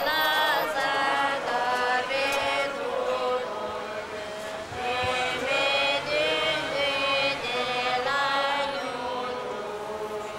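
Voices singing a slow, melodic chant in high register with long held notes, dipping briefly about four seconds in and fading near the end.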